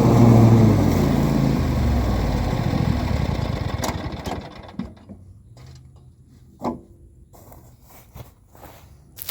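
Cub Cadet zero-turn mower engine, running on its epoxy-repaired pulse fuel pump, shut off and winding down, its pitch falling over about three seconds. A few light clicks and knocks follow.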